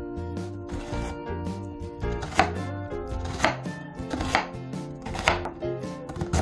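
Kitchen knife slicing through an onion and striking a wooden cutting board, with four sharp chops about a second apart in the second half, over background music.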